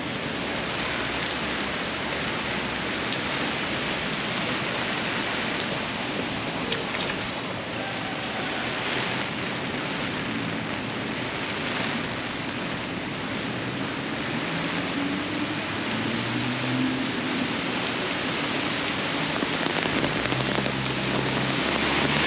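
Heavy rain falling steadily on pavement and street. A low hum comes and goes in the second half.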